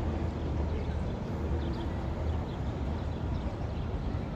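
Steady low outdoor rumble with a few faint, short chirps high in pitch.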